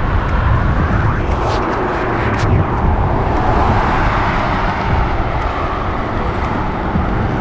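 Wind buffeting on the microphone of a moving bicycle: a steady loud rush with heavy low rumble.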